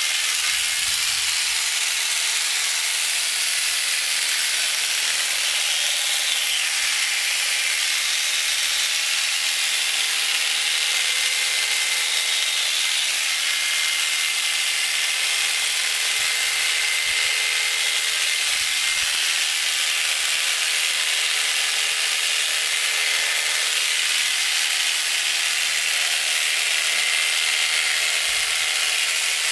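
Electric shearing handpiece running steadily as its cutter and comb move through a cashmere goat's fleece: a constant high buzzing hiss with a faint steady whine.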